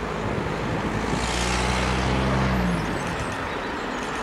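A motor vehicle passing close by over steady road traffic noise. Its low engine hum swells about a second in and stops about three seconds in.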